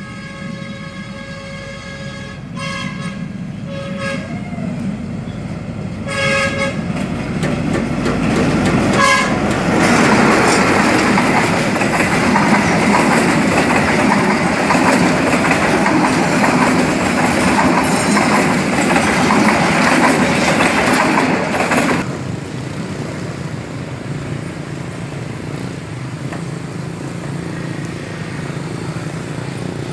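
Train horn sounding one long blast and several shorter ones as a passenger train nears a level crossing, a warning to road users. Then the loud rumble and wheel clatter of the locomotive and passenger coaches passing close by. About two-thirds of the way through this cuts off sharply to a quieter steady rumble.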